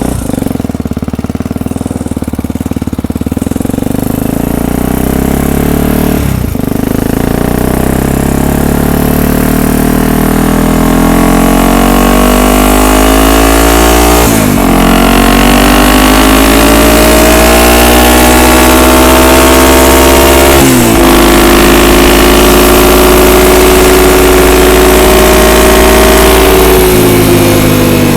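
ATV engine under way, its pitch climbing steadily through the gears with a short dip at each shift, about a quarter, half and three quarters of the way through, then falling as it eases off near the end.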